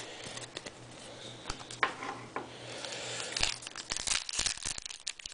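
Foil trading-card pack wrapper being crinkled and torn open by hand, a dense irregular crackling that grows busier and louder about three seconds in.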